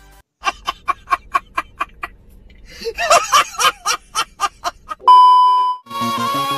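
A man laughing loudly in rapid, evenly spaced bursts. About five seconds in comes a loud steady bleep tone lasting under a second, then upbeat music starts.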